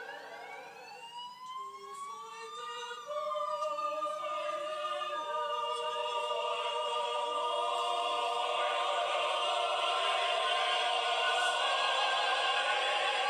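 A siren wails, rising for about three seconds and then falling away, over an opera chorus and orchestra. From about three seconds in the chorus swells into loud, long-held chords.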